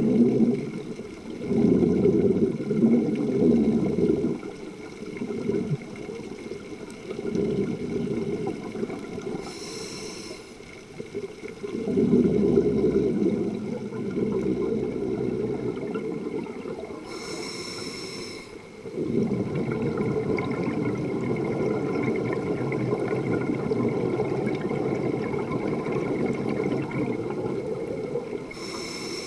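A scuba diver breathing through a regulator, heard underwater. Long bouts of low bubbling rumble from exhaled air are broken three times by a brief hiss of inhalation.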